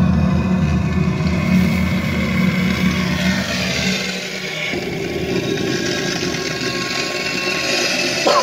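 Steady mechanical running noise with a low hum that drops away about halfway through, leaving a higher hiss.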